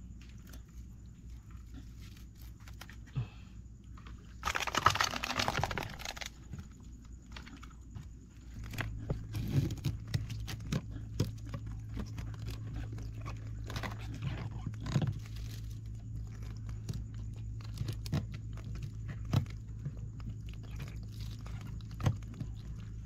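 Small clicks, crunches and scrapes from live crabs being handled and tied up with string against a wooden boat, with a louder rustling scrape about five seconds in. A low steady hum sets in about eight seconds in.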